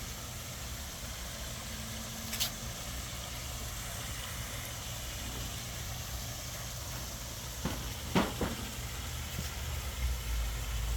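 Koi pond waterfall splashing steadily, over a low steady hum. A few short sharp sounds come through about two and a half seconds in and again around eight seconds.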